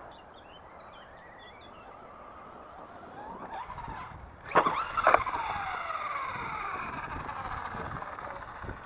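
FS Racing 1/10 scale brushless monster truck driving on dirt, its electric motor whining up and down in pitch with the throttle. Two sharp knocks come about four and a half and five seconds in as it lands a jump, followed by a long falling whine as it slows.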